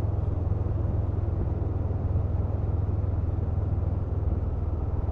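Honda CMX500 Rebel's parallel-twin engine running steadily at a cruise, a constant low drone with road and wind rush over it.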